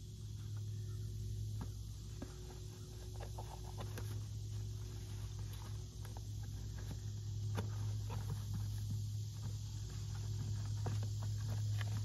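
Cardboard shipping box being opened by hand: scattered scratches, taps and small clicks as the tape and flaps are worked, over a steady low hum.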